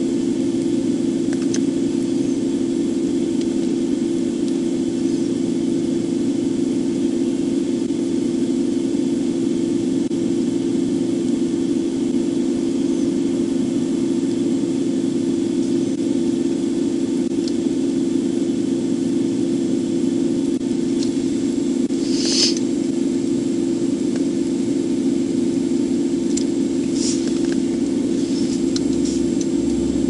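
Steady hum inside a parked, idling police patrol car, the engine and climate fan running with a faint hiss over it. A short sharp noise cuts in once, a little over two-thirds of the way through, followed by a few faint ticks.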